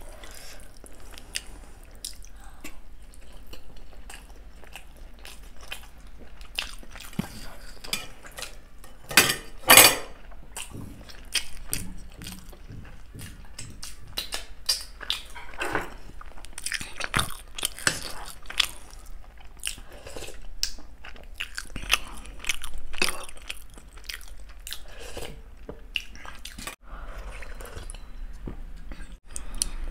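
Close-miked eating sounds: a person chewing and biting, with wet mouth noises and many quick irregular smacks as spicy Maggi noodles are eaten by hand. There is one louder noisy burst about nine to ten seconds in.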